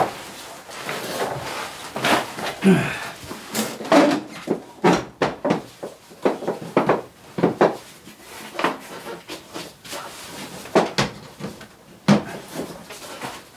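Irregular knocks and clanks of hand tools and metal parts being handled while a snowmobile's drive and skid are taken apart.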